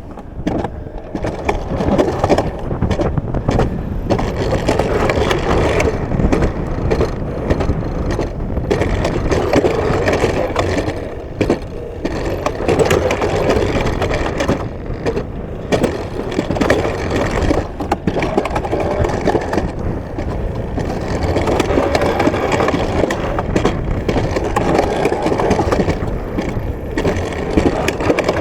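Alpine coaster sled rolling down its rail track: a steady rattling rumble of wheels on the rail.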